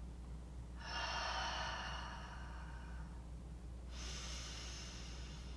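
A person breathing deliberately as a vocal warm-up: a long, audible breath out for about two seconds, then, about four seconds in, an audible breath in. This is the timed exhale-inhale that sets up the next spoken phrase.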